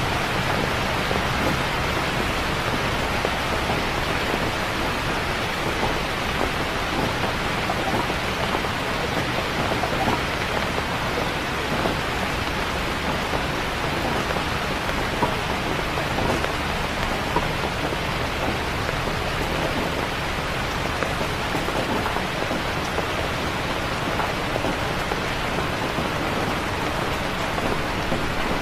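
Steady rain falling, an even, unbroken hiss of many drops with small ticks here and there.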